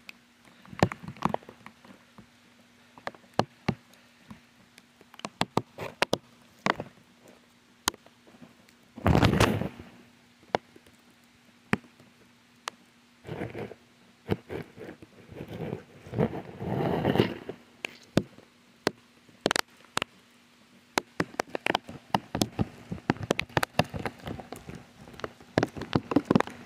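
Bare feet walking on wet gravel and mud: irregular sharp clicks and crunches of grit underfoot, with a few longer scuffing noises about nine seconds in and again around sixteen to seventeen seconds.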